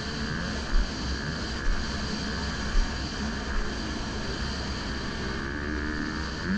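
Dirt bike engine, heard from on the bike, revving up and down as it rides a motocross track. Short low thuds come through about once a second.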